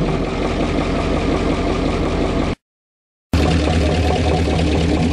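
1988 Chevrolet 1500 pickup's engine running steadily at idle through an open exhaust, its catalytic converter, which the owner believed plugged, cut out of the system. The sound breaks off into silence for under a second about two and a half seconds in, then resumes with a deeper low rumble.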